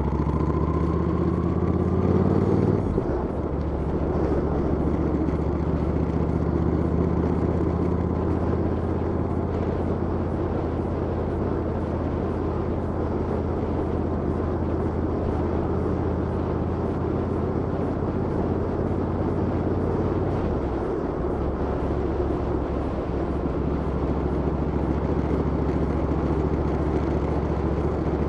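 Motorcycle engine running at close range: it revs up over the first couple of seconds, drops back, then runs steadily, with a brief dip about twenty seconds in.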